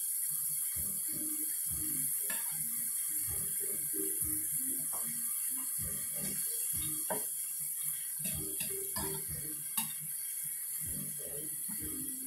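Ground beef sizzling in a cast iron skillet with a steady hiss as it is stirred and broken up with a spatula, the spatula scraping and clicking against the pan a few times, most sharply a little before the end.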